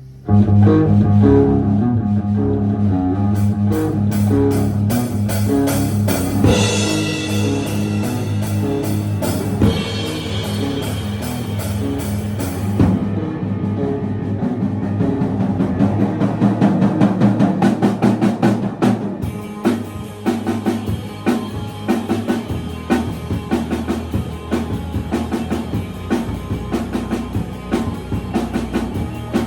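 A rock band playing live, with drums and guitar, kicking in together about half a second in and playing on loudly.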